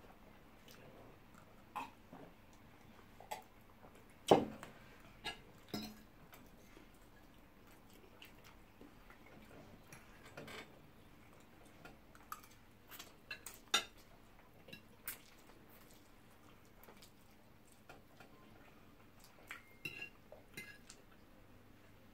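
Forks clinking and scraping on ceramic plates in scattered short clicks, the loudest about four seconds in.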